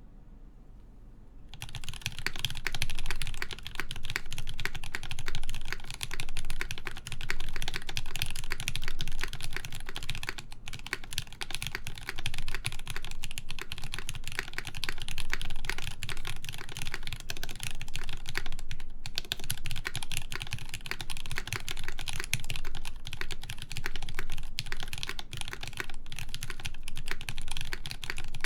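Fast continuous typing on a mechanical keyboard with lubed JWK Lavender linear switches in an aluminium plate, under GMK keycaps: a dense stream of key presses. It starts about a second and a half in, with short breaks around ten and nineteen seconds in.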